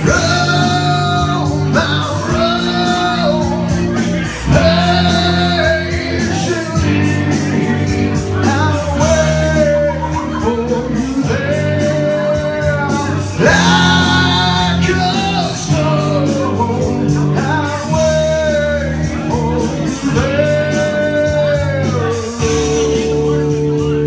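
A singer's voice through a microphone, singing phrases with held notes over amplified backing music with a steady bass, ending on a long held note near the end.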